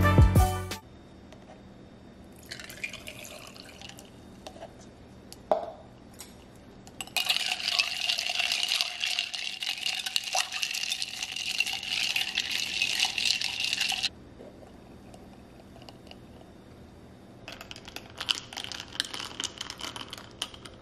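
Liquid poured over ice into a glass mason jar: a steady pour lasting several seconds, with shorter splashes and a knock before it. Near the end, ice and a metal straw clink in the jar.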